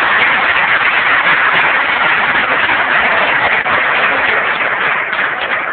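Large indoor audience applauding steadily, easing off slightly near the end.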